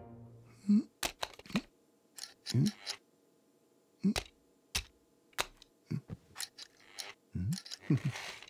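Foley for a toy slot-car racing set: scattered plastic clicks and clacks as a car is set on the track and the hand controller is handled, with a few short murmurs from a man's voice between them.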